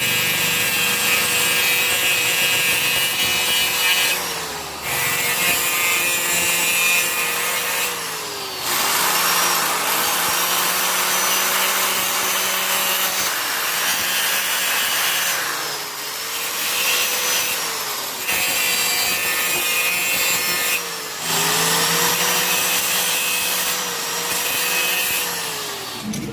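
Electric hand power tool grinding at the rusted steel casing of a refrigerator compressor. Its motor pitch sags each time it is pressed into the work and recovers when eased off, with several short pauses.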